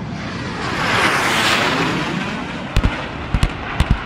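Military aircraft passing overhead with a rushing roar that swells and then fades. From about two-thirds of the way in comes a run of sharp cracks and pops as the aircraft fires a stream of decoy flares.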